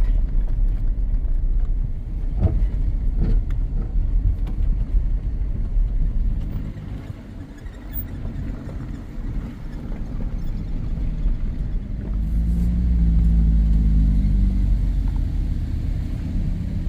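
Off-road vehicle driving on a dirt road: a steady low rumble of engine and tyres, with a couple of sharp knocks a few seconds in. About twelve seconds in it gets louder, with a clearer engine note.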